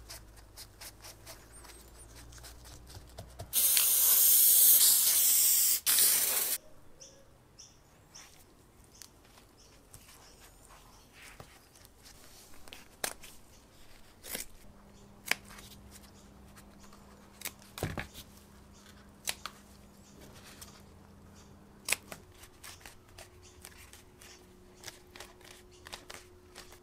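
A loud spray hiss lasting about three seconds, with a short break near its end, from seat-cover work. Scattered sharp snips and clicks follow, as scissors trim the leather-grain cover material and it is handled and stretched over a bicycle saddle.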